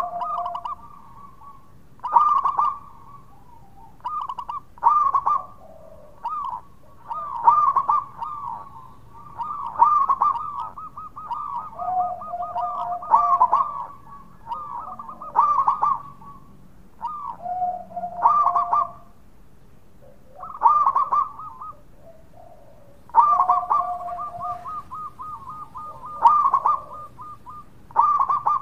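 Zebra dove (perkutut) cooing: bursts of rapid, rolling, trilled coos come every two to three seconds, and several phrases drop to a lower held note.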